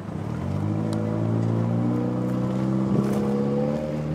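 A motor vehicle engine running, swelling up in the first second and then holding steady with its pitch rising slightly.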